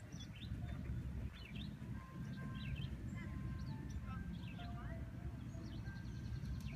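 Small birds chirping in quick, short calls, with a few thin held whistled notes, over a steady low rumble.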